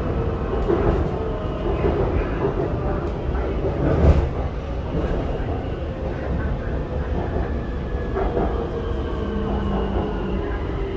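BTS Skytrain electric train running along the Silom Line: a steady rumble with a whine of several held tones, and one loud knock about four seconds in.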